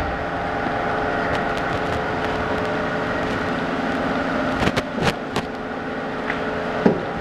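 Harley-Davidson Street 750's V-twin engine idling steadily. A few sharp clicks or knocks come about five seconds in and once near the end.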